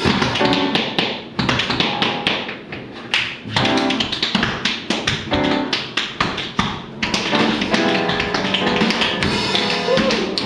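Tap dancing: quick, sharp tap-shoe strikes on a wooden floor, densest near the end, over a live jazz trio of upright piano chords and drums.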